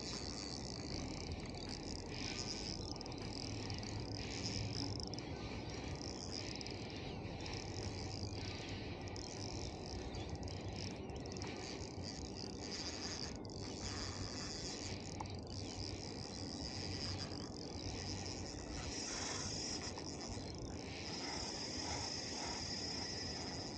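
Insects chirring: a high, hissy chirr that swells and breaks off in uneven pulses.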